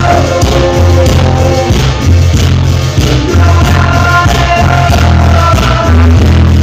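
Live cumbia band playing loud amplified music, with a heavy bass line and a melody of held notes over it.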